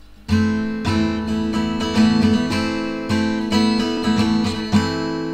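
Acoustic guitar strumming the chords of a song's intro, starting about a third of a second in and re-struck roughly once a second.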